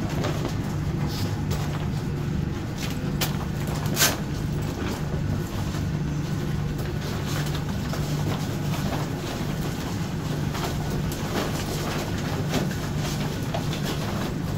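Steady low hum of the vessel's machinery, with crinkling and rustling of an aluminized firefighter's proximity suit as it is handled and put on; one sharper click about four seconds in.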